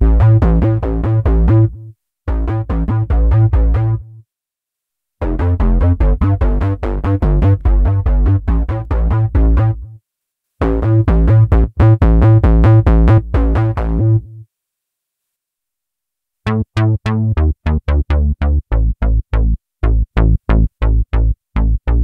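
TAL J-8 software synthesizer, an emulation of the Roland Jupiter-8, playing a square-wave bass preset in phrases of quick repeated notes that stop and start several times. About two-thirds of the way through, after a short gap, a different bass preset begins, with short clipped notes at about three a second.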